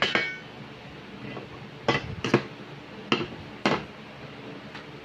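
Kitchen handling sounds around a stainless steel pot on an induction cooktop: a brief metallic ring right at the start, then four sharp clicks and knocks over about two seconds as the cooktop's power cord and plug are handled.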